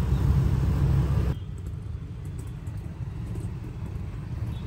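Low wind rumble and road noise from riding a motorbike through city traffic. The rumble drops abruptly about a second and a half in, leaving a quieter, steady hum of traffic.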